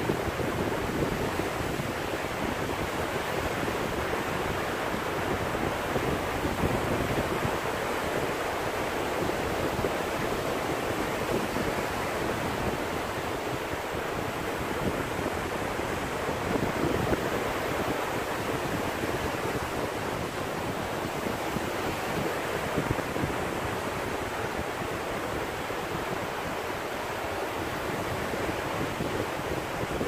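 Small sea waves breaking and washing up onto a shallow sandy shore: a steady, unbroken rush of surf with small swells in loudness as each wave comes in.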